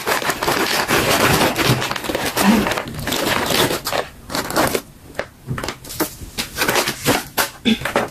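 Dried fruit and vegetable chips pouring out of a crinkly plastic bag onto a wooden tray: a dense run of rustling and crackling for about four seconds, then scattered crinkles and light taps as the last pieces settle.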